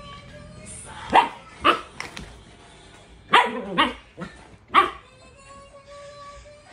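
Siberian husky puppy barking: a run of about six short, sharp barks, one near the middle drawn out with a wavering pitch.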